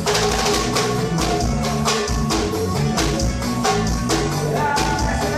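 Upbeat band music with a steady driving beat of drums and tambourine-like percussion under melodic lines.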